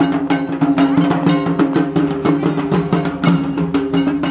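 Dhak drums beaten with sticks in a fast, dense rhythm, over a steady held tone.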